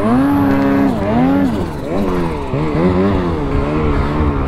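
Snowmobile engine revving up and down over and over, its pitch climbing and dropping several times.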